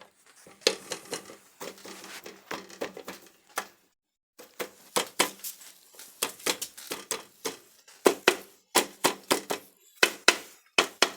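Metal hand tools clinking and tapping on autorickshaw engine parts during reassembly: an irregular clatter of sharp knocks, then from about two-thirds of the way in a more even run of strong taps about twice a second, over a faint steady hum.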